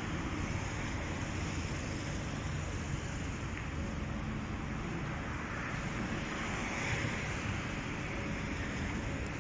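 Steady hiss of city road traffic, with some wind on the microphone; it swells briefly about seven seconds in.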